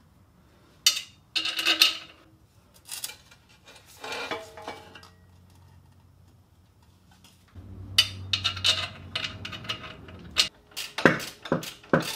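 Stainless-steel exhaust pipe sections clanking and clinking as they are handled and fitted, a string of metallic knocks, some with a short ring, coming thicker in the last few seconds.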